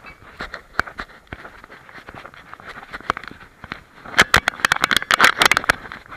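Scraping and crackling of a dog-mounted camera rubbing against a black German shepherd's fur as the dog moves across rough moorland grass: scattered clicks at first, then a dense burst of loud crackles about four seconds in.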